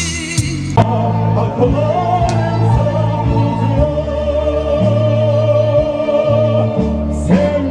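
Music: a slow song, a singer holding long notes with vibrato over an accompaniment of steady bass notes. The sound changes abruptly just under a second in.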